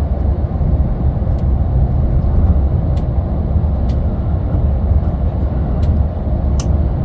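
Steady low rumble of a road vehicle driving, heard from inside the cabin, with a few faint clicks.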